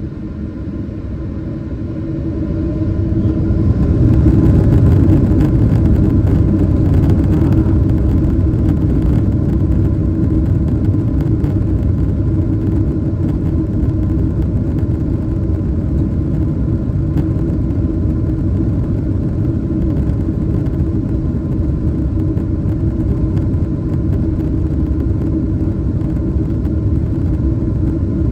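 Airliner jet engines heard from inside the cabin, spooling up to takeoff thrust over a couple of seconds near the start. They then hold a steady, loud rumble with a low hum through the takeoff roll.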